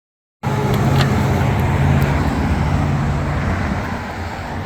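Road traffic with a motor vehicle's engine running close by: a low, steady engine hum over tyre and road noise that eases off after about three and a half seconds.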